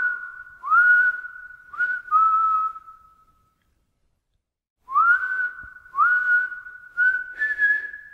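A whistled melody: single notes that each slide up at the start and then hold, in two phrases with a pause of about a second and a half between them. The last note is higher than the rest.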